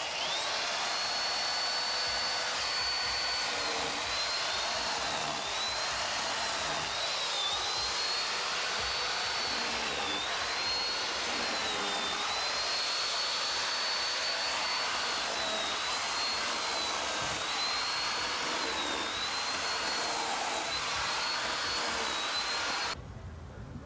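Chainsaw cutting into stacked wooden blocks. Its high whine sags again and again as the chain bites and picks up in between. It cuts off suddenly near the end.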